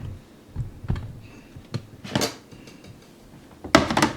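Aluminum pan of ground venison being handled and set down on a scale: a few light knocks and scrapes, then a louder metal clatter near the end.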